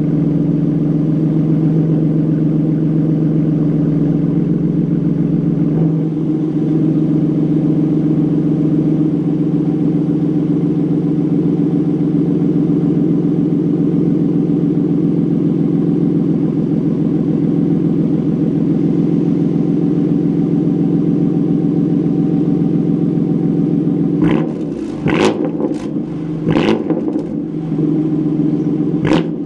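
Stage 3 tuned BMW M3 engine idling steadily after a cold start, the idle settling slightly lower about six seconds in. Near the end come several short, sharp bursts over the idle.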